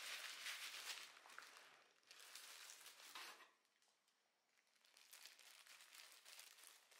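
Faint crinkling and rustling of plastic gloves as hands knead and fold pizza dough on a silicone mat, stopping about three and a half seconds in. A fainter soft hiss follows as flour is dusted over the dough.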